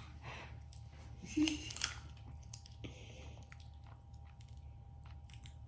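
Close-up eating sounds of snow crab legs and shrimp: shells crackling and snapping, with chewing, in short irregular clicks over a steady low hum. The loudest crackle comes about a second and a half in.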